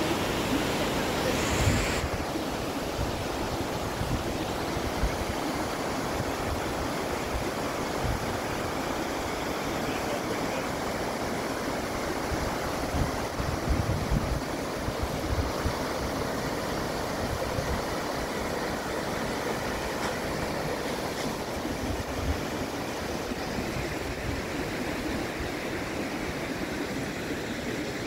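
Eagle Falls waterfall rushing steadily, a continuous roar of falling water, with irregular low thumps under it.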